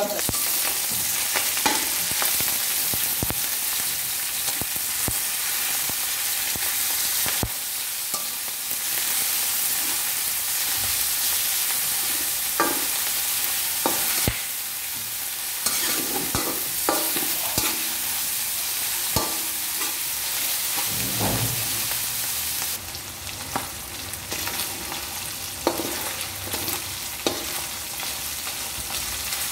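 Ground pork frying in oil in a metal wok, a steady sizzle, while a slotted metal spatula scrapes and clicks against the pan, breaking up and stirring the meat. The sizzle eases a little about two-thirds of the way in.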